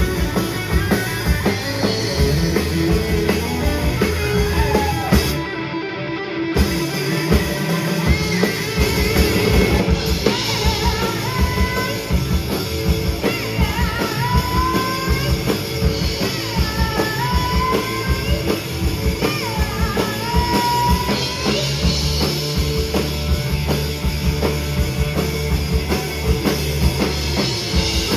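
Rock music with a drum kit, electric guitar and singing, playing steadily at full volume.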